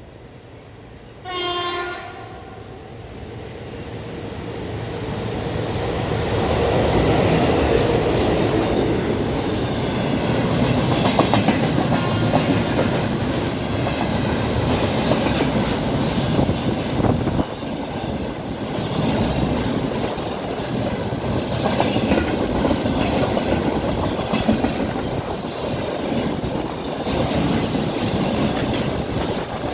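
VL10u electric locomotive gives one short horn blast about a second in, then comes up and runs past with a train of empty container flatcars. The rumble builds over the next few seconds and holds, with the wheels clattering over rail joints.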